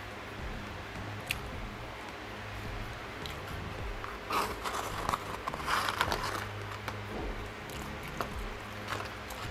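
French fries shaken out of a paperboard fries carton into a paper tray: rustling and scraping of the carton and fries starting about four seconds in and lasting about two seconds, with a few small clicks before and after.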